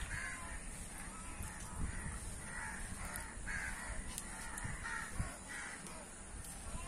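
Crows cawing over and over, roughly two harsh caws a second, in a steady run.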